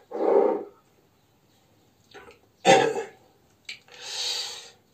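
A man clearing his throat and coughing in a few short separate bursts, the loudest starting sharply a little under three seconds in, followed by a softer breathy sound near the end.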